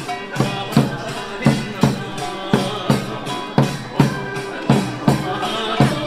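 Korean folk-style dance music with a drum beating a steady rhythm, about three strokes a second.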